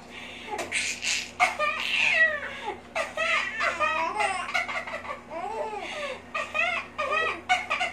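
A baby laughing in repeated short bursts of giggles.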